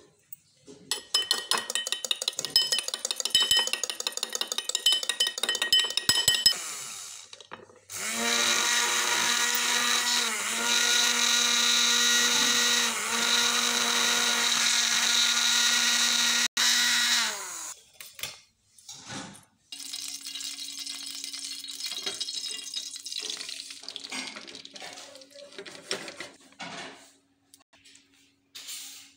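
Eggs beaten in a small drinking glass, with rapid clinks that make the glass ring. Then a handheld immersion blender runs in the glass with a steady whine for about nine seconds, its pitch dipping twice as it loads. After it stops comes quieter crackling over a steady low hum as the egg mixture cooks in a pan.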